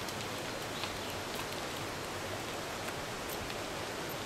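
Steady hiss from a large pack of mountain bikes rolling past on a paved road, with a few faint scattered clicks.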